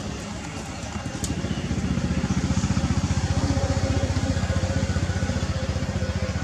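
A small engine running at a steady idle with a fast, regular low throb that grows louder about a second in. A single sharp click sounds shortly before that.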